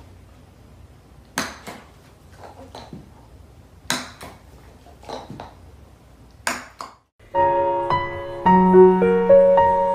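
Golf iron striking golf balls off a hitting mat: three sharp clicks about two and a half seconds apart, each followed by a few fainter ticks. About seven seconds in, piano music begins.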